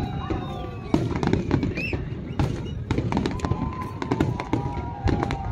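Fireworks display: rapid bangs and crackling bursts of aerial shells, one after another, over a continuous low rumble.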